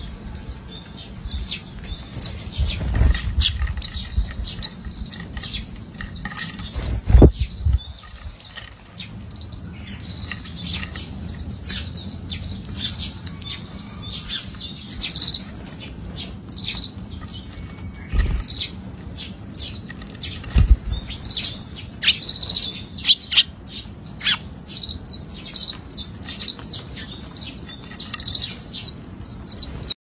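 Eurasian tree sparrow pecking at sunflower seeds in a clay dish: many quick sharp clicks and taps of beak on seed husks and dish. Short high chirps repeat, mostly in the second half, with a few low thumps scattered through.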